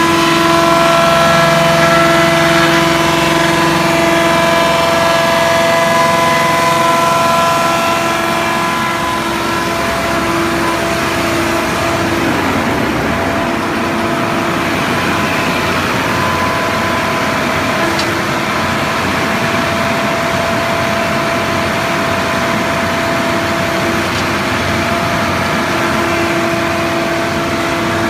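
Wood crusher (sawdust machine) running as it grinds wood into sawdust. Its motor and rotor give a steady hum with a higher whine over a constant rushing noise, and the pitch wavers briefly around the middle.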